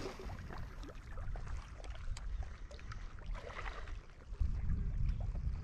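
Wind rumbling on the microphone over small waves lapping at the shore, with scattered light ticks and splashes.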